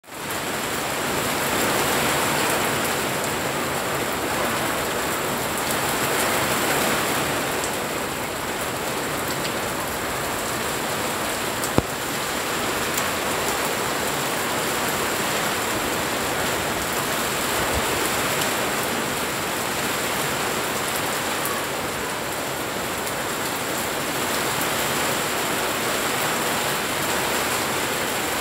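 Heavy rain falling steadily, an even hiss of drops on leaves and surfaces. One sharp click stands out about twelve seconds in.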